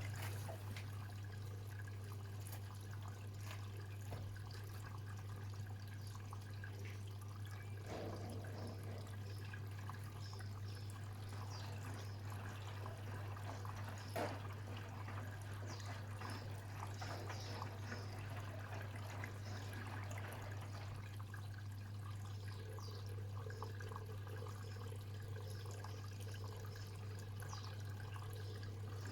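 Bosch Serie 6 washing machine with water trickling and dripping inside the drum during its wash programme, over a steady low hum.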